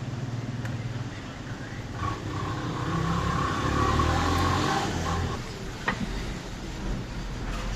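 Car engine running, growing louder for a few seconds in the middle, with a single sharp click near the end.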